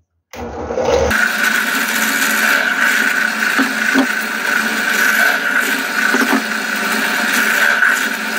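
Bench drill press running steadily with a high, constant whine, drilling small holes with a 2.5 mm bit through thin pallet-wood slats held in a jig; it settles into its steady run about a second in. A couple of light knocks come partway through.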